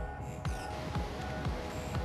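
Background music with a steady beat: a deep kick drum about twice a second under held electronic tones.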